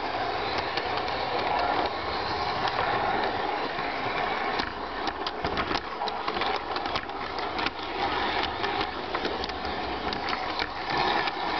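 An LGB garden-scale model train running along its track, heard from on board: a steady motor and wheel whir with many sharp clicks from the wheels on the rails, thickest in the middle.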